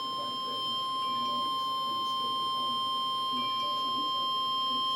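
Emergency alert attention tone: one steady single-pitch electronic tone, the weather-radio warning alarm that comes before a flash flood warning message.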